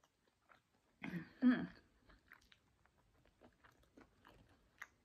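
Close-miked chewing of grilled jerk chicken eaten by hand: a louder bite about a second in, then small wet mouth clicks and smacks as the meat is chewed.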